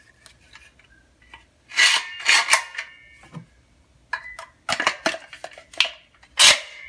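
Metal caulking gun clanking and rattling as a tube of caulk is fitted into it: a series of sharp knocks in clusters, some with a brief metallic ring, the loudest near the end.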